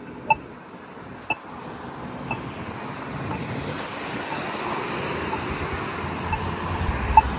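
Polara iNS2 crosswalk push button's locator tone ticking about once a second, a short, sharp tick repeated evenly. Road traffic passes underneath, growing louder toward the end.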